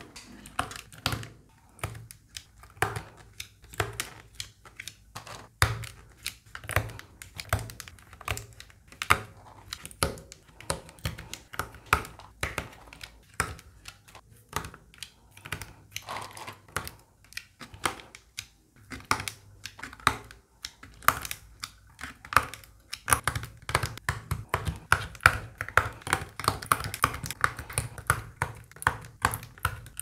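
Gateron Milky Brown mechanical switches being pressed one after another into a keyboard kit's steel plate and hot-swap sockets, each seating with a sharp click. The clicks come faster and more densely about two-thirds of the way in.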